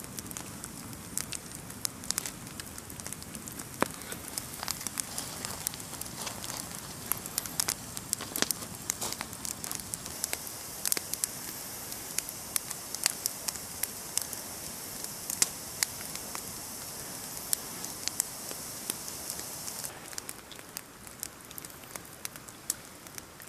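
Wood campfire of stacked sticks burning, crackling with many sharp pops at irregular intervals over a steady low hiss.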